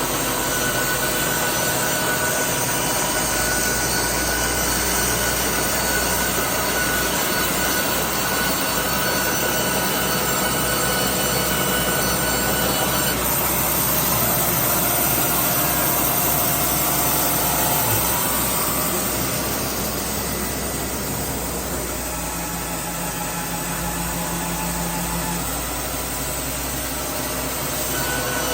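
Baker band sawmill running: a steady machine drone whose tones shift about halfway through.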